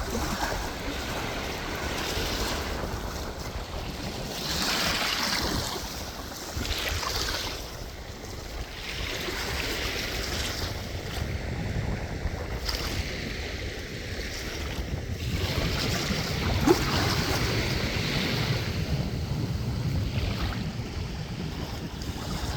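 Sea waves washing onto the shore, the hiss of the surf rising and falling in repeated washes, with wind rumbling on the microphone.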